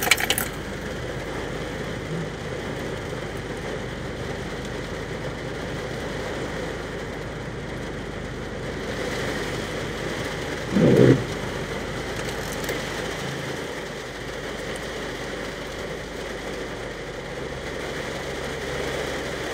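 Steady hiss of rain, with one short, loud low sound about eleven seconds in.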